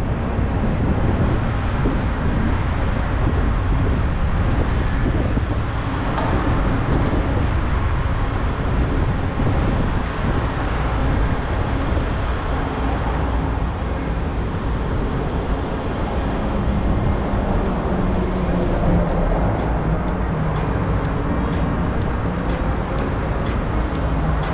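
Steady low rumble of vehicle and street noise. Faint sharp ticks, roughly two a second, come in over the last several seconds.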